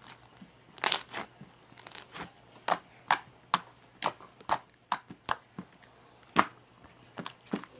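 Clear slime full of air bubbles being pressed and squeezed by hand, giving irregular sharp pops and clicks as the bubbles burst, some in quick pairs.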